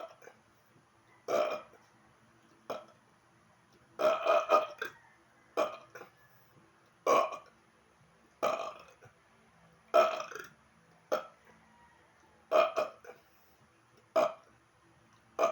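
A man burping again and again: short, separate burps about every second or so, some coming in quick runs of two or three.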